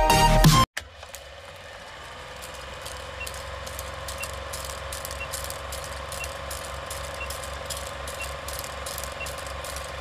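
Electronic intro music cuts off under a second in, then an old film projector's clatter fades in, a fast run of clicks over a steady hum. A short high beep sounds once a second, like a film countdown leader.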